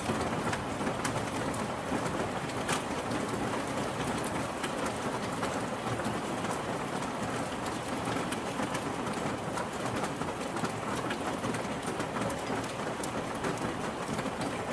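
Steady rain falling, with many sharp drips and patters of drops striking surfaces throughout.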